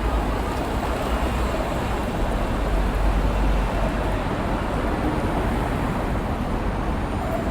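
Steady low rumble of vehicle noise, even throughout with no single standout event.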